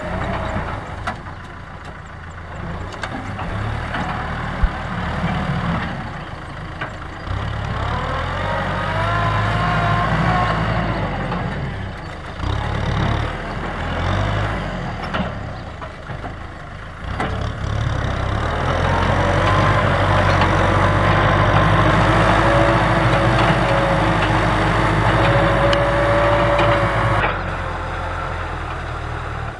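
Tractor diesel engine running under load, with a pitched whine that climbs about a third of the way in and comes back, louder and longer, for most of the second half.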